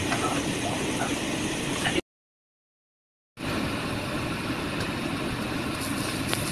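Chopped red onions frying in a wok, a steady sizzling noise with light scrapes of a wooden spatula stirring them. The sound cuts out completely for about a second and a half in the middle.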